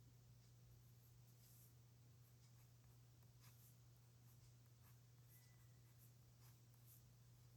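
Faint scratching of a pen nib on paper, short separate strokes of handwriting, over a steady low hum.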